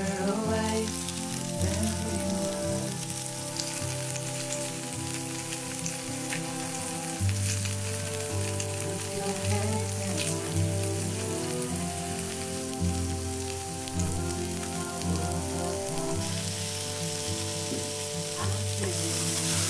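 Pork meatball patties sizzling as they fry in oil on a griddle, a steady crackling hiss that grows louder a few seconds before the end. Background music with sustained notes plays throughout.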